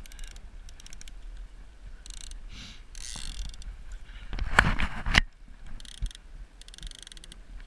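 Fishing reel clicking in short spurts while a big striped bass is being fought on the line. About halfway through there is a louder, rougher burst of handling noise.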